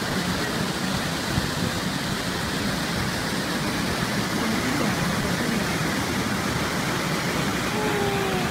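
Fast-flowing muddy floodwater rushing steadily over rocks and spilling down a small drop in an eroded dirt bank.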